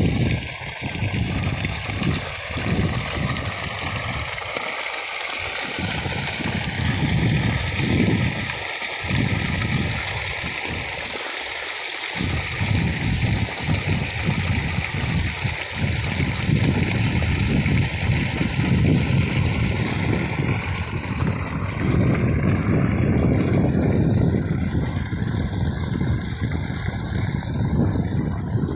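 Water gushing steadily from an irrigation pipe into a flooded rice paddy, with irregular gusts of wind rumbling on the microphone.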